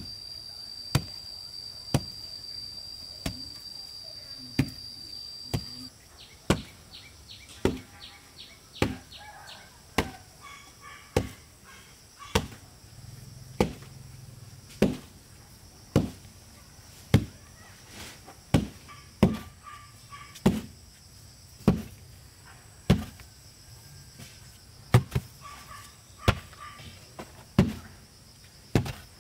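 Sharp strikes of a hand tool, repeated steadily, about once a second at first and quickening to one and a half to two a second after about six seconds. A steady high whine runs under the first six seconds and then stops.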